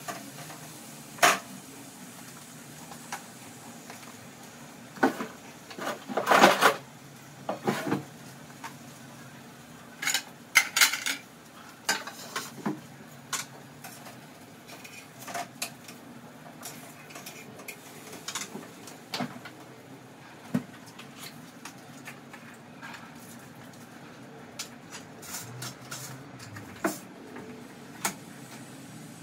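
Pots, pans and cutlery clinking and clattering in irregular knocks while cooking at the stove, loudest about six seconds in and again around ten seconds in.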